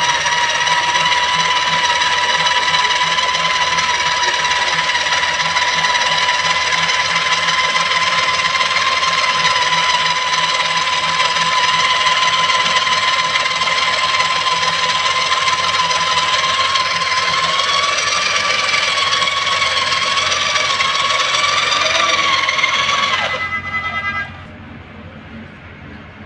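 Drill motor driving a cylinder hone in a Massey Ferguson 385 engine's cylinder liner: a steady high whine with a scraping hiss as the liner is polished. The pitch creeps up a little near the end, then about 23 seconds in the drill is switched off and winds down.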